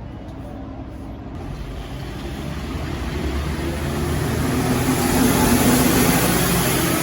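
A road vehicle passing close by, its engine hum and tyre noise swelling to a peak about five seconds in and then starting to fade.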